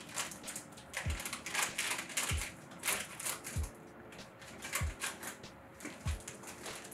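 Clear plastic garment bag crinkling and rustling in bursts as it is handled and cut open with scissors. Under it, a soft low thump recurs at an even beat a little over a second apart.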